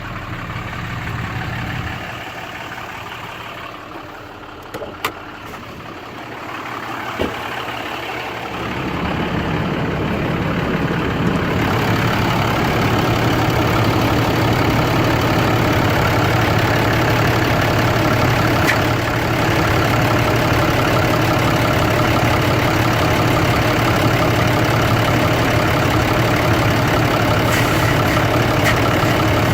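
2012 Ram 3500's 6.7 L Cummins inline-six turbo-diesel idling steadily, growing louder about eight seconds in and again around twelve seconds, with two sharp clicks before that. The truck has very bad blow-by, traced to a bad turbocharger.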